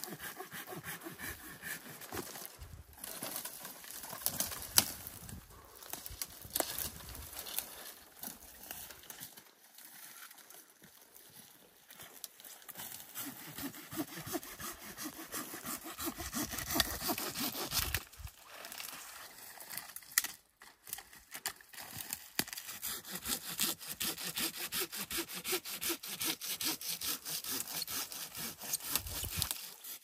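Hand pruning saw cutting through a pine branch at the trunk: long runs of rapid back-and-forth strokes, with a couple of short pauses.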